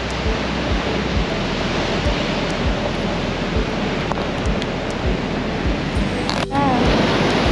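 Ocean surf breaking on a rocky shoreline: a steady wash of water noise with soft low thumps every half second or so. About six and a half seconds in it drops out briefly and comes back louder.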